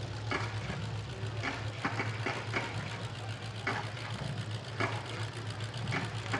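Demolition derby cars' engines idling steadily, with scattered sharp clicks.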